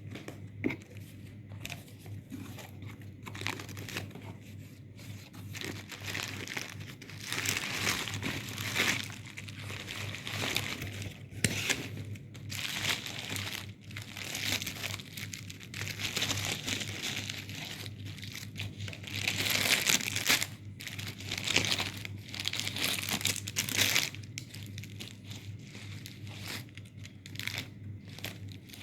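Parcel packaging being handled, crinkled and torn open by hand, in irregular rustling bursts that are loudest about two-thirds of the way through.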